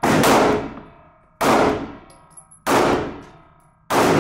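Four pistol shots fired at a steady pace about a second and a quarter apart, each a sharp crack with a long ringing echo off the walls of an indoor range.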